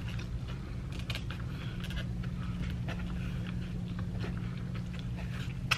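Chewing with small scattered clicks of a plastic fork against a styrofoam takeout container, over a steady low hum; one sharper click near the end.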